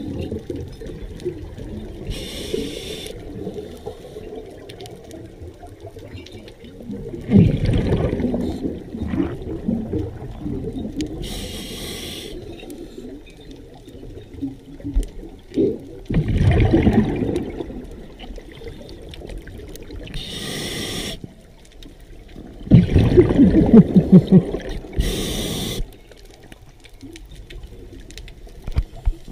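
Scuba diver's regulator breathing underwater: a short hiss at each inhale and, several seconds later, a louder bubbling rush as the exhaled air escapes. This repeats about three times over a steady low water wash.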